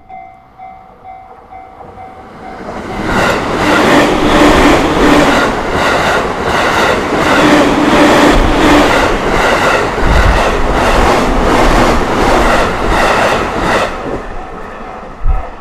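A JR Tohoku Main Line train passing over a level crossing. Its wheels clack rhythmically over the rail joints for about ten seconds and then fade. The crossing's warning bell keeps ringing in a repeating pattern.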